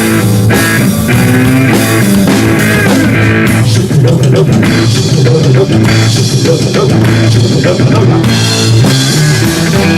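Rock band playing live: drum kit and guitar carrying an instrumental stretch with no singing.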